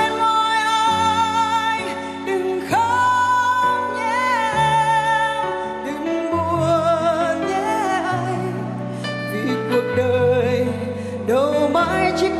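A woman singing a song into a microphone over accompanying music, holding long notes with vibrato above a moving bass line.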